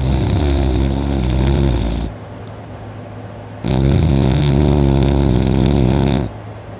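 A person in deep sleep, mouth open, snoring loudly: two long, rumbling snores of about two and a half seconds each, with a pause of about a second and a half between them. A steady low hum sits underneath.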